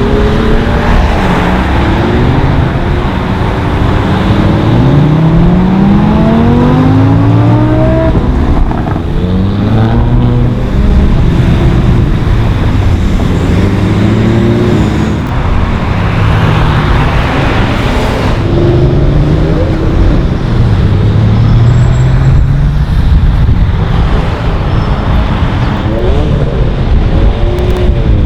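Tuned and modified cars accelerating past, engines rising in pitch through several gearchanges, one car after another, over constant loud road and engine noise.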